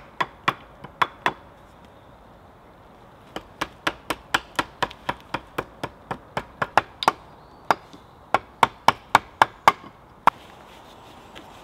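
A hand tool striking wood in quick, sharp blows, about four a second: a short run of blows, a pause of about two seconds, then a longer steady run of some twenty-five blows, ending with one last blow.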